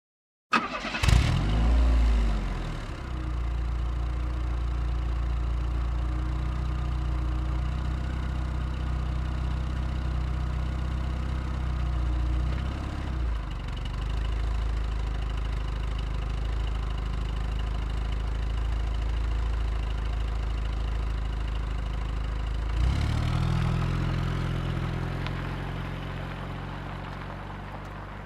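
Car engine starting up and revving briefly, then settling into a steady idle. Later it revs once more, then the sound fades out near the end.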